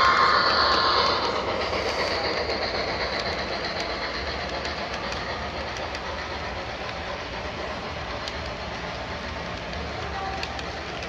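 Model Southern Pacific GS-6 steam locomotive passing close at the start, its sound loudest in the first second and then fading as it moves off. A string of model freight and mail cars follows, rolling steadily along the track with a light clicking of wheels on rail.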